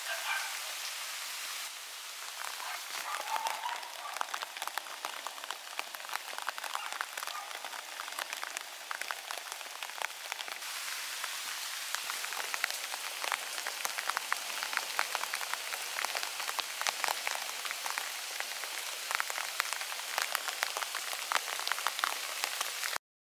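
Steady rain falling, a hiss dotted with many sharp raindrop ticks close by.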